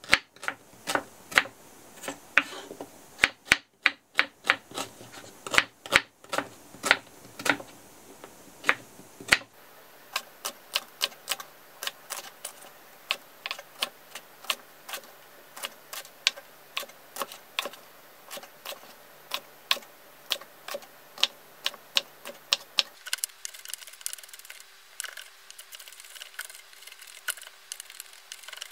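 Chef's knife chopping on a wooden cutting board: a run of sharp knocks, about two to three a second, as the blade slices through onion and then red chillies.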